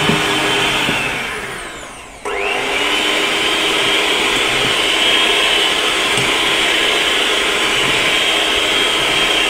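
Aicok electric hand mixer motor kneading flour dough with dough hooks. Its whine slows and falls in pitch over the first two seconds, then starts up again abruptly, rises briefly, and runs steadily to the end.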